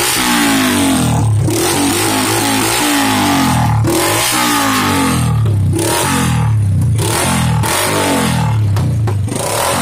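Small motorcycle engine running through a homemade twin-pipe silencer, its throttle blipped about once a second so the exhaust note rises and falls back each time.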